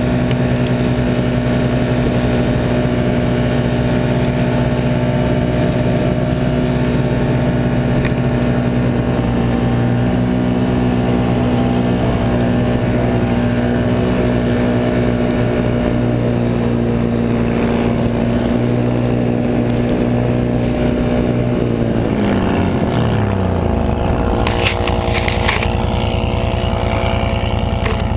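Can-Am Outlander 1000 XT ATV's V-twin engine running at steady high revs under load as the tracked machine ploughs through deep powder snow. About three-quarters of the way through, the revs fall away, and a few short clattering knocks follow.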